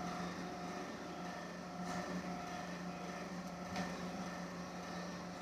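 A steady low mechanical hum, with a couple of faint light taps as thick gravy is stirred in a steel kadhai with a silicone spatula.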